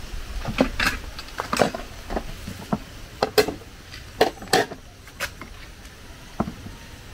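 Utensils clinking and knocking against a cooking pot in about a dozen irregular strikes while a soup is being prepared.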